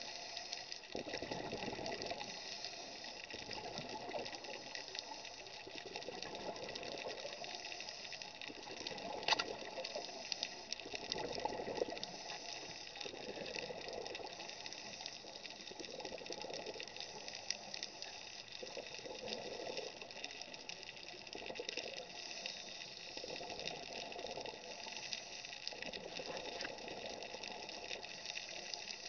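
Underwater scuba breathing: regulator exhaust bubbles gushing in bursts every couple of seconds over a steady hiss. There is one sharp click about nine seconds in.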